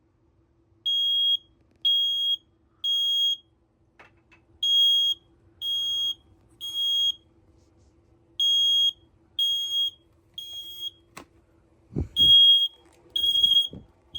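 Piezo smoke alarm in full alarm, beeping a high tone in the temporal-three evacuation pattern: three half-second beeps, a pause of about a second and a half, repeating. A couple of sharp clicks and some louder knocks and rustles of handling come near the end.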